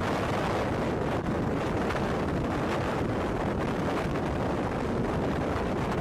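Strong storm wind blowing hard across the microphone: a steady, dense rush with no breaks.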